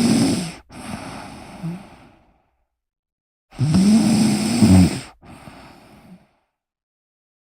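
A person snoring: a loud, low snore on each in-breath followed by a quieter out-breath, repeating about every four and a half seconds with silence between breaths.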